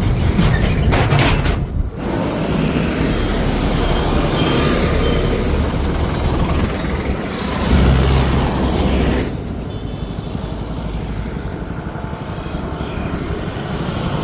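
Heavy vehicle's diesel engine running with a deep, loud rumble, the sound changing abruptly about two seconds in and again about nine seconds in.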